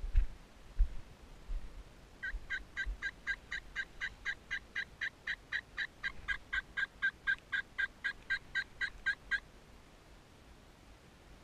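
Turkey yelping: a long, even series of about thirty call notes, roughly four a second, lasting about seven seconds. A couple of low bumps on the camera come in the first second.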